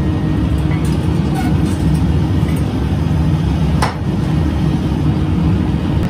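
Workshop machinery running with a loud, steady low rumble, with a few light clinks and one sharp metallic click just under four seconds in.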